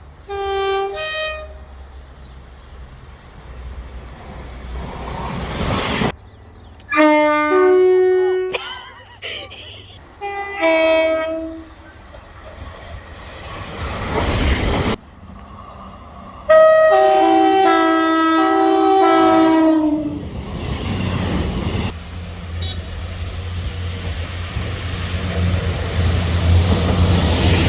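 Train horns in a run of short clips: brief two-tone blasts near the start and twice more after about six seconds, then a longer horn passage of alternating notes a little past halfway. Train running noise lies between them, and the last several seconds are a train passing with a low, building rumble.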